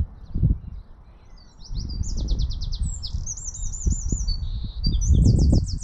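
European robin singing: high phrases of rapid repeated trilled notes, starting about two seconds in, over a low rumble that swells and fades.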